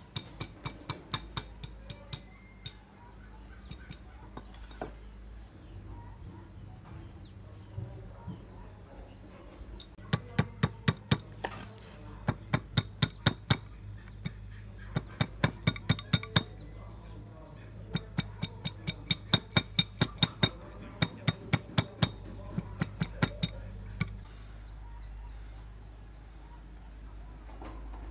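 Rapid metallic clicks, about three a second, in runs of several seconds with pauses between, from an adjustable wrench working the valve nut on a bicycle inner tube.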